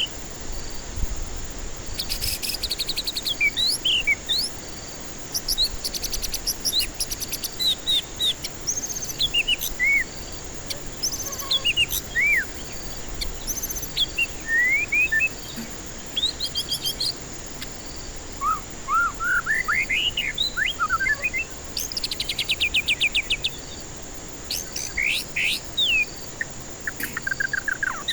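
White-rumped shama (murai batu) singing a varied song of clear whistled notes, rising and falling slurs and fast rattling trills, in phrases separated by short pauses. A faint steady high insect-like buzz runs beneath.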